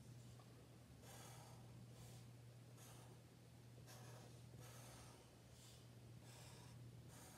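Faint, short scratchy strokes of a felt-tip marker drawn across paper, about one a second, as letter outlines are traced, over a steady low hum.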